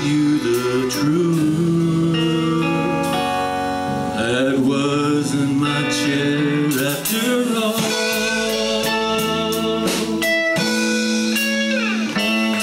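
Live country band playing with a male singer: drum kit and guitars under long sung notes.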